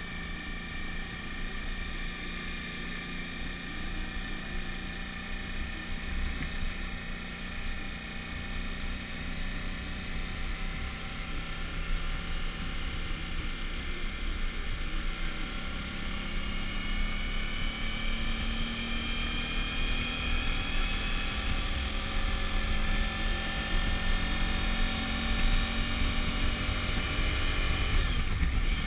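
Suzuki V-Strom DL1000's 996 cc V-twin engine running on the move, with low rumbling wind noise on the microphone. The engine note rises steadily and grows louder through the second half as the bike picks up speed.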